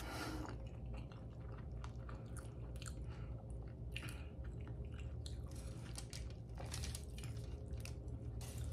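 Close-miked chewing of a mouthful of soft scrambled eggs: a steady run of small wet clicks and smacks from the mouth, over a low steady hum.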